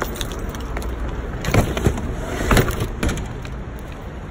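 An SUV's rear liftgate is shut, with a couple of sharp thumps, followed by footsteps on asphalt over a low steady outdoor rumble.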